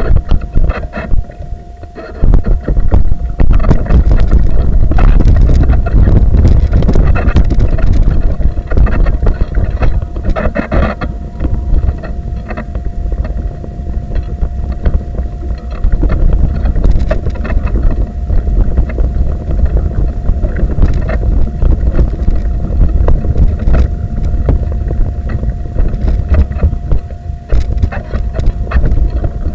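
Low rumble and jolting knocks picked up by a camera mounted on a moving wheelchair, with wind buffeting the microphone and a thin steady whine throughout.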